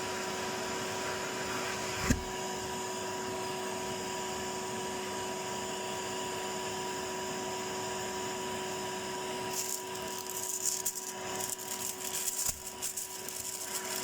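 Household vacuum cleaner running with a steady, even hum. There is a single sharp knock about two seconds in, and from about ten seconds in irregular scraping and rustling noises come and go over the hum.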